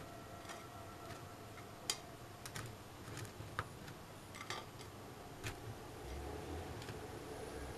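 Baked cookies being set down one at a time on a wooden board and onto each other: light, scattered clicks and taps, the sharpest about two seconds in.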